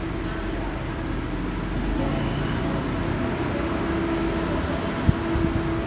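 Steady mechanical hum and low rumble, with a single sharp knock about five seconds in.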